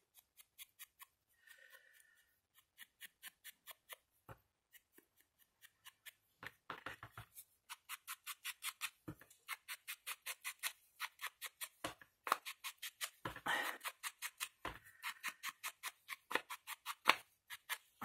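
Quick, repeated dabbing and rubbing strokes of an ink pad along the edge of a cardstock strap to give it a slight shading, about three strokes a second. The strokes are faint and sparse at first, then steady from about six seconds in.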